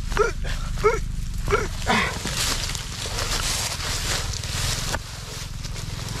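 A dog barks four times in quick succession, about one and a half barks a second. From about two seconds in, a long-handled hoe chops and scrapes into dry earth and grass.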